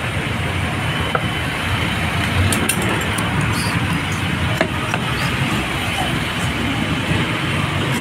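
Steady low rumble of background noise like road traffic, with a few light metallic clicks and taps from tightening the nut on a washing machine's plastic gear-case pulley and turning the pulley by hand.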